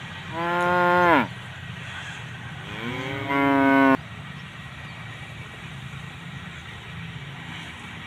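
Cattle mooing twice: a call of about a second that drops in pitch at its end, then a longer call that rises and cuts off suddenly.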